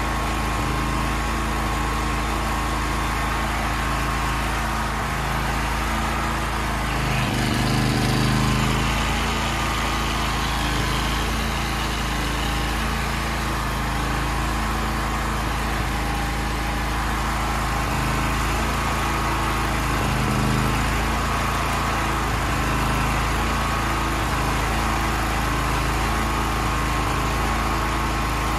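Small portable petrol generator engine running steadily, its note briefly swelling about a quarter of the way in and again about two-thirds through.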